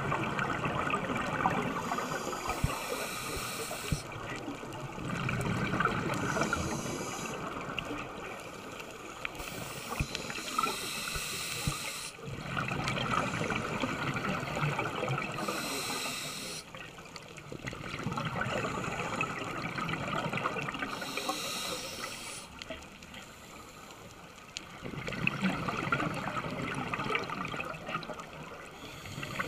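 A scuba diver breathing underwater through a regulator. Exhaled air leaves the regulator as bursts of bubbling several seconds long, with quieter gaps for each inhalation.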